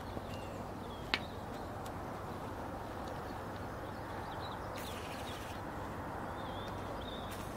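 Outdoor ambience: a steady even background noise with a few faint, short bird chirps, and one sharp click about a second in.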